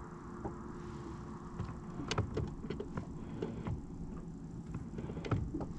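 Steady low rumble on a small fishing boat, with scattered light clicks and knocks starting about two seconds in.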